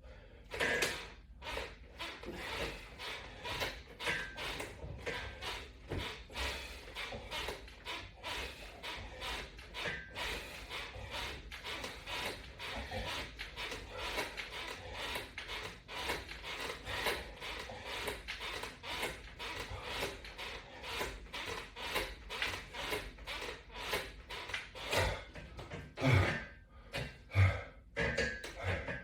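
Latch bar exercise attachment and its straps clicking and creaking in a fast, even rhythm, a few strokes a second, as sit-up reps are worked through it, with a few louder knocks near the end.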